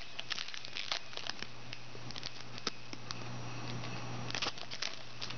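Foil wrapper of a trading-card pack crinkling and crackling in the hands as it is pulled open.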